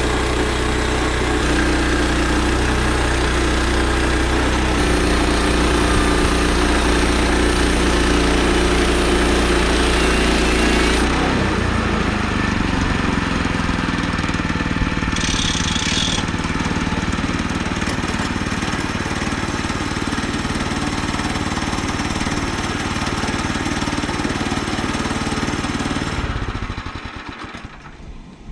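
Woodland Mills HM122 portable bandsaw mill running under power while sawing an ash log into slabs. The engine note shifts about 11 seconds in, then the engine winds down near the end.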